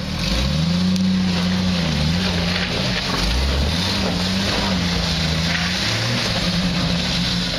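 Jeep Wrangler YJ's engine revving up in the first second and held at high revs under load as the Jeep climbs out of a rut, the pitch wavering and dipping briefly a couple of times.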